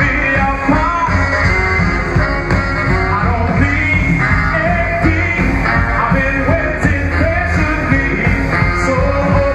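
Rock and roll band music with a singer, a steady beat and a full band sound, recorded live.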